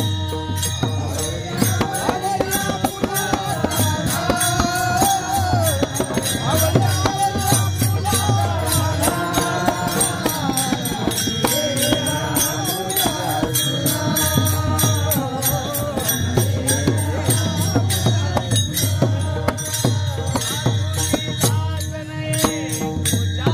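Warkari bhajan: men singing a Marathi gavlan (devotional song), with the steady rhythmic clash of brass taal hand cymbals and the beat of a mridang drum.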